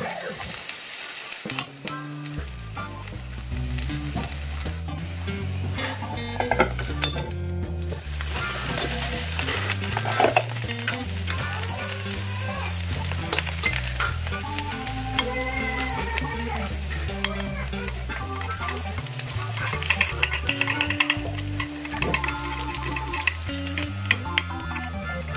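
Kanom krok batter sizzling in the cups of a hot kanom krok pan, with a metal spoon clicking and scraping against the pan near the end, over background music.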